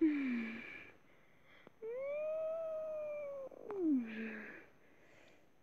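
A boy crying: a short cry falling in pitch at the start, then a long drawn-out wail about two seconds in that rises a little and falls, and a falling moan near four seconds, with sobbing breaths between.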